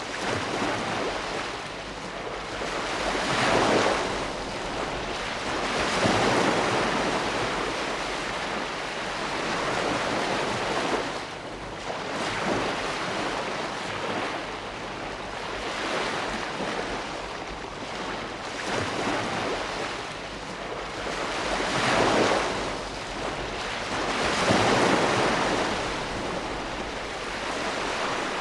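Ocean waves breaking and washing on the shore in a continuous surf, with swells building and fading every few seconds.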